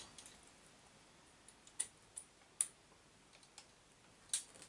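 A few small, sharp clicks and taps of metal suspension parts, a ball joint and its screw, being handled and fitted by hand. Several clicks come between about one and a half and three seconds in, and a louder one near the end.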